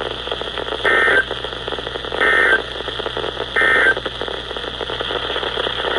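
NOAA Weather Radio SAME end-of-message signal: three short buzzing digital data bursts, each about a third of a second, spaced a little over a second apart, marking the end of the warning broadcast. Steady radio static hiss runs underneath.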